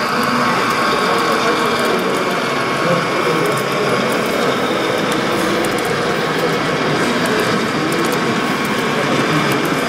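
HO-scale model freight train running along the layout track: a steady mechanical whir of the wheels and gearing, with faint clicking over the rails.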